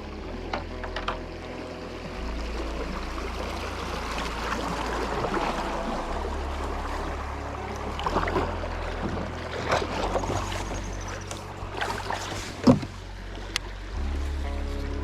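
Background music with a low bass line that changes every couple of seconds, over water noise and scattered knocks and splashes from a kayak paddle. One sharp knock, the loudest sound, comes near the end.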